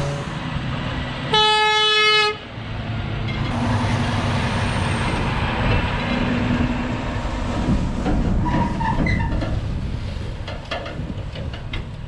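A semi truck's horn sounds once for about a second, about a second and a half in, followed by the truck's diesel engine running with a steady low rumble.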